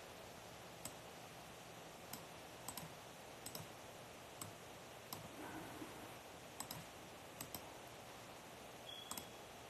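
Faint, irregular clicks of keys or buttons being pressed on beat-making gear, about one a second, some in quick pairs. A brief high tone near the end.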